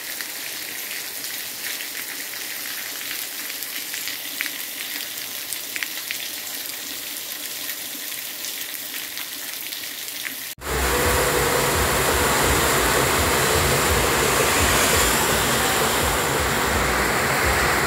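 Steady rain falling on a garden, an even hiss of drops. About ten seconds in it cuts to a much louder, heavy downpour with a deep rumble underneath.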